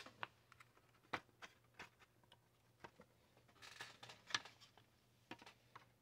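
Faint, scattered light clicks and taps of hands and a tool handling the plastic housing and parts of an electric space heater during disassembly, with a brief rustle about four seconds in.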